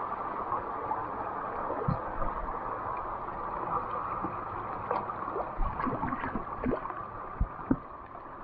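Mountain stream water rushing steadily, with irregular splashes and sharp knocks as a freshly landed trout flaps in a landing net held down in the shallow current; the loudest knocks come near the end.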